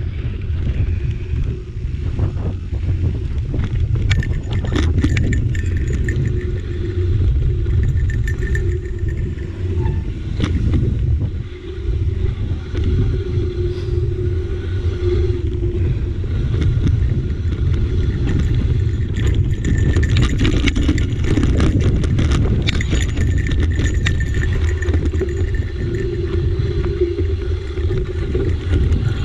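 Mountain bike rolling fast down a dirt trail: steady wind buffeting on the handlebar camera's microphone, with tyre rumble and many quick rattling clicks as the bike jolts over bumps.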